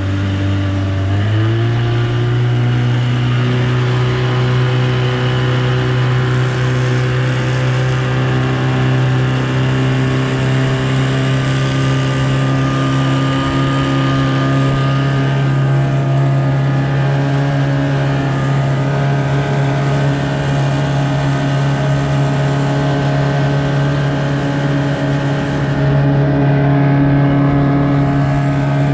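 Evinrude outboard motor pushing the boat at speed. Its pitch steps up about a second in and then holds steady.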